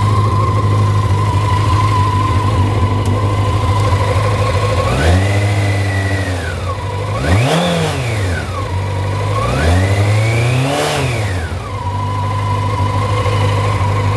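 1987 Honda CBR600F Hurricane's inline-four engine idling steadily with the choke off, then revved three times: a short held rev about five seconds in, a quick sharp blip, and a slower rise and fall, each dropping cleanly back to idle.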